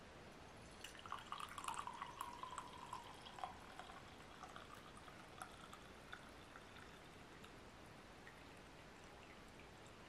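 Tea poured from a glass teapot into a glass cup: a splashing stream for about two and a half seconds, thinning to faint trickling and drips that die away.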